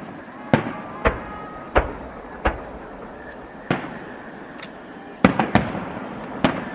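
Aerial firework shells bursting in a display: a string of sharp bangs, about one every half second to second, with three in quick succession about five seconds in, each trailing off in an echo.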